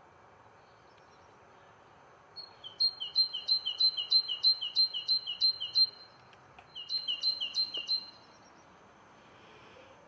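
A small songbird singing: a two-note phrase, a higher note then a lower one, repeated quickly about three times a second. It comes in two runs, the first about three seconds long and the second shorter, with a pause of about a second between them.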